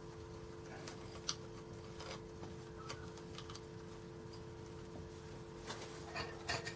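Light, scattered clicks and taps of small metal parts being handled while clutch springs are fitted and their nuts started by hand on an IZh Planeta 5 clutch, with a quick cluster of clicks near the end. A steady faint hum runs underneath.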